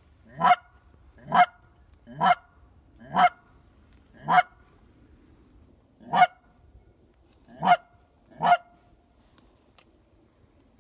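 Goose honking: eight short, loud single honks. The first five come about a second apart, then they come more irregularly.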